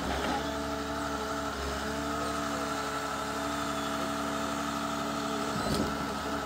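Rottne forwarder's diesel engine running steadily while the hydraulic crane swings a grapple-load of logs, with a single knock near the end as the logs are set down on the pile.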